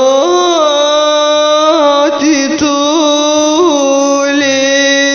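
Arabic song music: one long held melody line that bends in small ornamental turns, over soft low bass notes.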